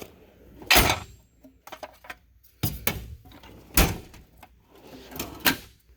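Steel drawers of a US General 44-inch tool chest sliding shut and open, with loose metal tools knocking and clattering inside: a handful of sharp knocks a second or so apart.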